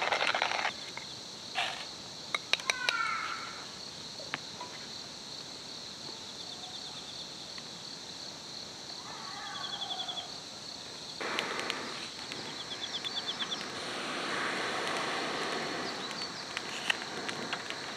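Outdoor ambience: a steady high chirring of autumn insects, with a few short bird chirps and trills and scattered light clicks. A soft hiss comes in about eleven seconds in.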